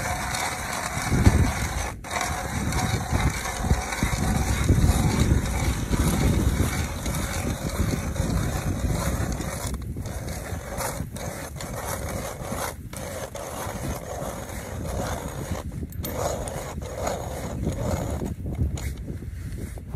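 Hand ice auger cranked round and round, its blades grinding and scraping as they bore a fishing hole through lake ice.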